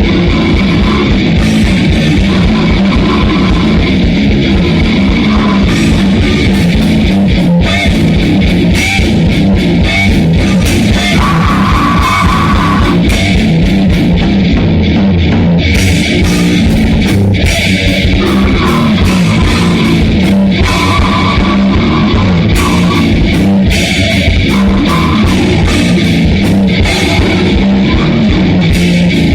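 Grindcore/death metal band playing loudly and continuously: electric guitar over a drum kit with frequent cymbal and drum hits, recorded at a rehearsal.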